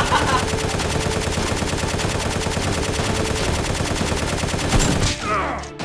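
Rapid, continuous automatic gunfire, a machine-gun sound effect laid over a staged Nerf battle, that stops about five seconds in, giving way to a short falling swoop.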